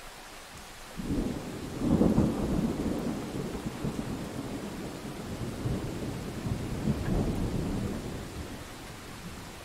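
Thunder over steady rain: a clap breaks about a second in, is loudest a second later, then rolls on in deep rumbles with a couple more swells and fades away near the end, leaving the hiss of the rain.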